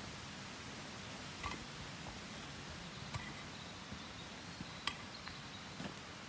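Quiet woodland background: a faint steady hiss, broken by three sharp ticks about a second and a half apart and a few fainter ones.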